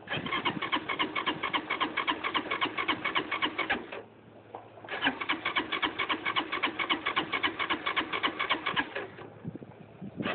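LF200III motorcycle engine being cranked by its electric starter without firing: a fast, even chugging of about eight beats a second. It comes in two goes of about four seconds each, with a short pause between them, and a third go begins near the end. This is an engine that won't start.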